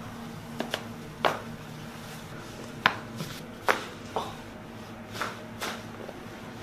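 Handling sounds of a chiropractic adjustment: about eight short, sharp clicks and knocks at irregular spacing, the sharpest about three seconds in.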